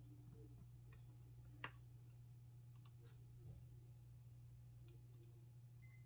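Faint clicks of multimeter test probes tapping on a DC power connector's metal pins. Near the end the multimeter's continuity beeper starts a steady high beep, the sign that the probes have found a connection: the ground pin.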